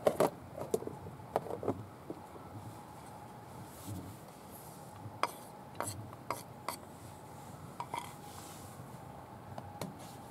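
Scattered light clicks and taps from camp cooking gear being handled, with a run of taps a little past the middle as sliced ginger is tipped from a wooden plate onto raw chicken in a small nonstick frying pan.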